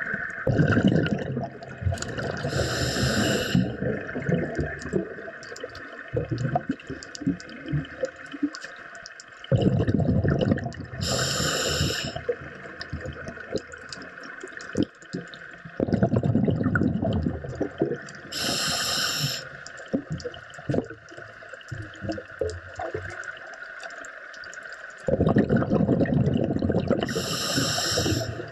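Scuba diver breathing through a regulator underwater: each breath is a long rush of exhaled bubbles, then a short hiss of the regulator on the inhale. The cycle repeats about every eight seconds.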